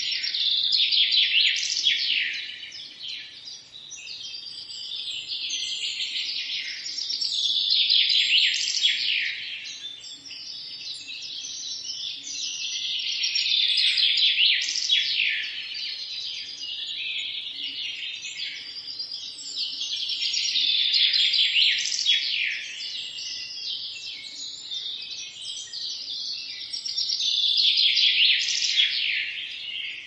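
Garden birdsong: one bird sings a bright, high phrase of two or three seconds, falling in pitch toward its end, and repeats it about every six to seven seconds, with fainter calls from other birds between the phrases.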